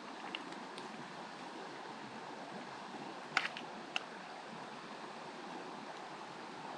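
Trout creek water running steadily, with two short clicks about half a second apart a little past the middle.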